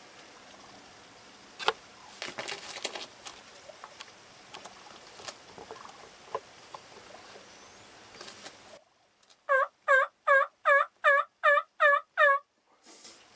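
A run of eight turkey yelps, evenly spaced at about three a second, each note bending downward. They come after several seconds of faint rustling and light clicks.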